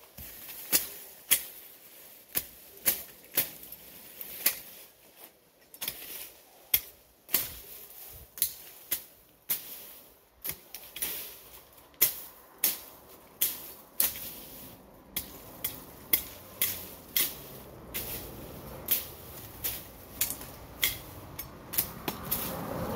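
Machete chopping into weeds and soil: a string of sharp strikes, about one to two a second and unevenly spaced. Near the end a low rumble grows louder underneath.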